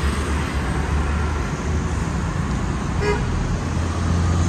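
City road traffic running steadily, with a low engine rumble, and a brief vehicle horn toot about three seconds in.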